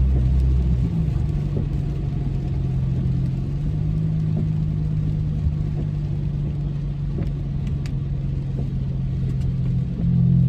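Car engine running steadily, heard from inside the cabin: a low, even hum with rumble beneath it. A few faint ticks come in the second half.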